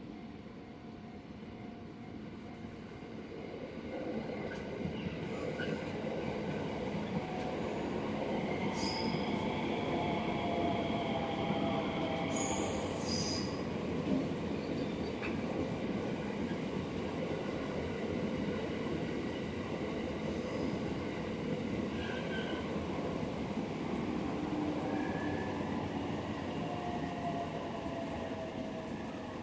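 A train passing along the Hokuho freight line. Its running noise builds from about four seconds in and stays loud until it eases near the end, with thin, high wheel squeals coming and going over it.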